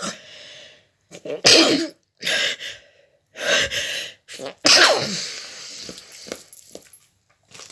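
A person sneezing about four times in a row, each sneeze a loud burst about a second apart.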